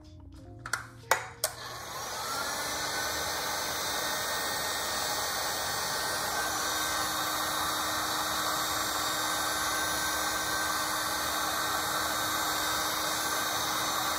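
A couple of sharp clicks about a second in, then a heat gun's fan starts up, rising briefly in pitch, and runs with a steady blowing hiss and motor hum while it shrinks heat-shrink tubing over a wire splice.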